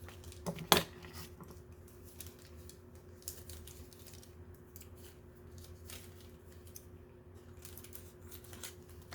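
Light clicks and taps of small plastic doll accessories being handled, with a sharper click just before a second in and another near the end, over a steady low hum.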